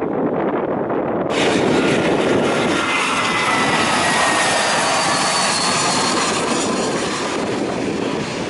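Airbus A320 on final approach passing close: jet engine noise with a high whine that slowly falls in pitch as it goes by. For about the first second, before a cut, there is the duller rumble of a departing twin-engine widebody jet.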